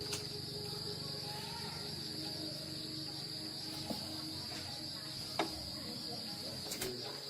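Crickets trilling steadily in one high band, with a low hum underneath and three short sharp clicks in the second half.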